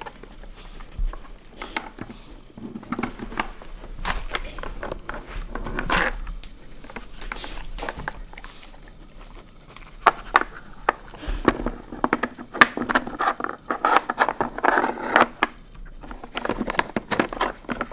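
Blue plastic Nina Ottosson Hide N' Slide dog puzzle being nosed and pawed by a Samoyed: irregular plastic clicks, knocks and scrapes as its blocks slide in their tracks and its pegs rattle. The clatter grows busier in the second half.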